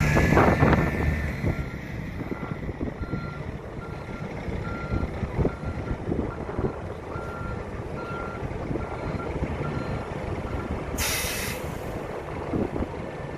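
A heavy vehicle's reversing alarm beeping steadily, about twice a second, over the low rumble of its diesel engine, which is loudest at the start. Near the end comes a short, sharp hiss of released air, like an air brake.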